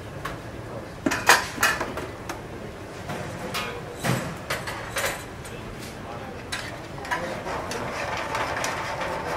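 A metal spoon and pans clinking and knocking on a gas stove as pasta is stirred through a creamy sauce, with a cluster of sharp clinks about a second in and a few more later. Near the end there is a busier, steadier clatter as the pan is worked and tossed.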